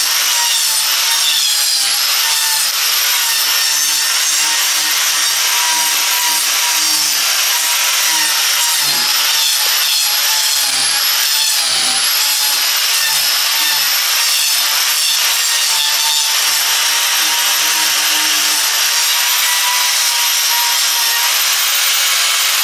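Power grinder tearing into a wooden burl blank: a steady, loud, rasping grind with a high motor whine that wavers slightly as the disc bites. It is grinding off weight to balance the blank for turning on the lathe.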